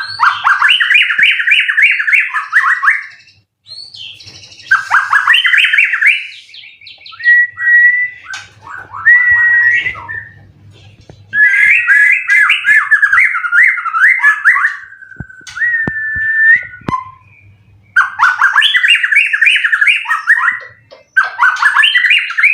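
White-rumped shama (murai batu) singing loudly in bursts of fast, trilled phrases of rapidly repeated notes, with a few clear held whistles and short pauses between bouts.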